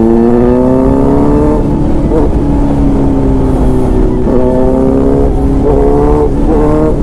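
Kawasaki Z900 inline-four engine and exhaust heard from the saddle under acceleration. The pitch rises for about a second and a half, breaks, then holds steady and eases, with several short rises and dips in the second half as the throttle changes.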